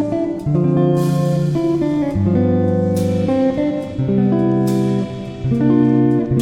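Background music led by guitar, with held chords that change about every second and a high crash accent every couple of seconds.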